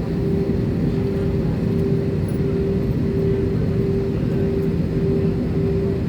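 Airliner cabin noise on the ground: a steady engine drone and rush of air, with a hum and a low tone that pulses evenly, a little under twice a second.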